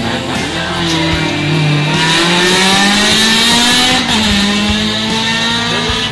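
Rally car engine revving hard as the car accelerates past, its pitch climbing over a few seconds, then dropping with a gear change about four seconds in before it climbs again.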